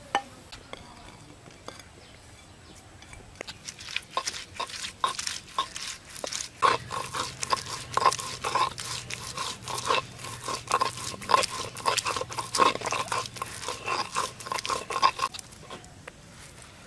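Spice paste being ground on a flat grinding stone (shil-pata): the hand stone crunches and clacks against the slab in quick repeated strokes, starting a few seconds in and stopping shortly before the end.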